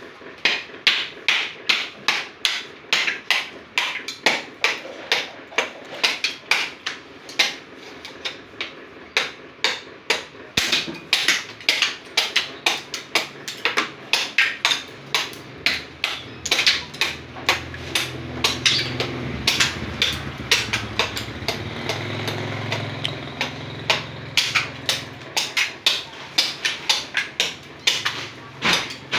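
Jakarta-made hatchet (kampak) chopping the hard shell off a mature coconut: quick, sharp chops, about two or three a second, without pause. A low hum joins in the background through the middle.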